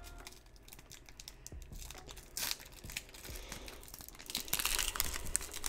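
Pokémon card booster pack wrapper being crinkled and torn open by hand, with a short, louder rip about two and a half seconds in and heavier crinkling near the end.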